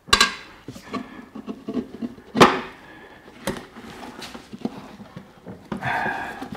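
Steel tire irons prying a worn Heidenau K28 tire's bead off a motorcycle spoke rim: sharp metal clinks and knocks, the loudest about two and a half seconds in, with rubber and metal scraping between them.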